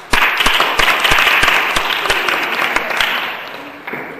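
Small audience applauding, with one pair of hands clapping loudly close by about three times a second; the applause fades out after about four seconds.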